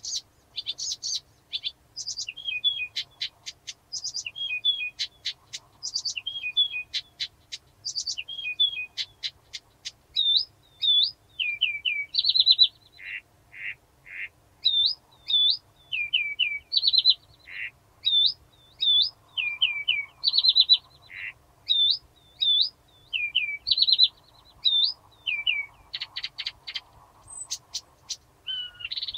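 Blyth's reed warbler singing a steady, unhurried song of varied phrases. Each phrase is repeated two or three times, with short runs of dry clicks in between.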